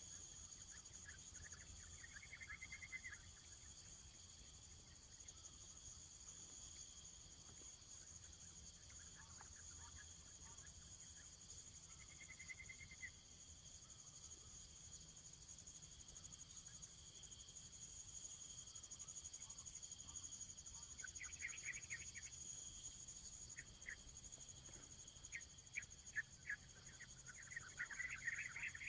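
Faint steady high-pitched trilling of insects such as crickets, with occasional short bird chirps that grow busier near the end.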